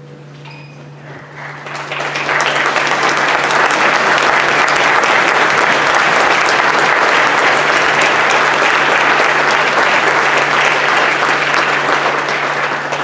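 Theatre audience applauding: the clapping swells in over the first two seconds, holds steady, and dies away near the end.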